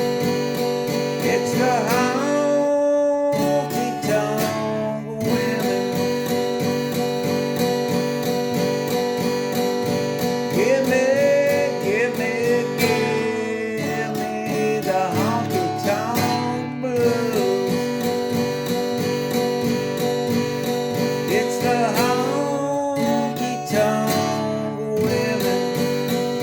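Acoustic guitar strumming a country tune, with single notes that slide up and down in pitch over the chords.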